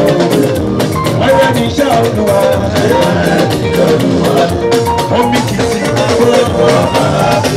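Background music with a steady drum beat and melodic instruments.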